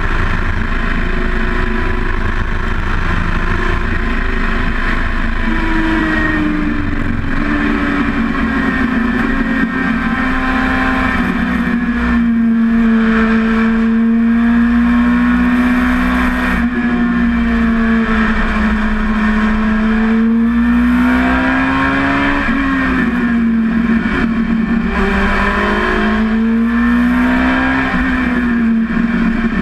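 Dwarf race car's motorcycle-based engine running hard, heard from inside the cockpit, its pitch rising and falling as the driver speeds up and slows through the course. The pitch climbs and then drops sharply twice in the second half, over a steady rush of wind and road noise.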